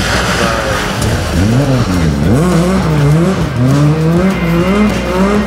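Ford Escort Mk2 rally car's engine revving hard as it accelerates out of a loose gravel corner: the pitch climbs, drops sharply about two seconds in, then rises again in steps through the gear changes.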